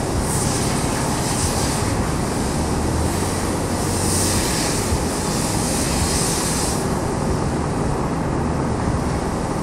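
Large drum fan running: a steady, loud roar with a low hum. Twice a higher hiss rises over it as the thick rope strands are pulled and worked by hand, once near the start and again from about four to seven seconds in.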